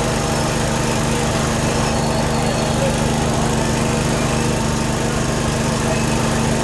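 A small engine running steadily at a constant speed, with a low hum that holds the same pitch throughout.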